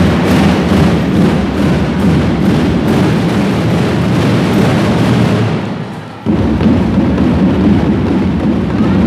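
Drum and lyre band playing loudly: marching drums with mallet lyres. The sound dips briefly and the full band comes back in suddenly about six seconds in.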